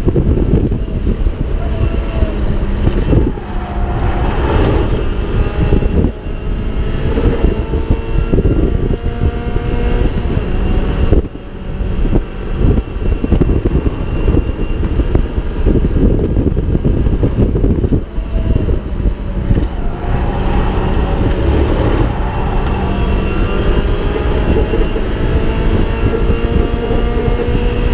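Mazda MX-5 race car engine heard from on board at racing speed, its pitch climbing in long pulls and dropping back at the gear changes and braking points, with wind buffeting the microphone.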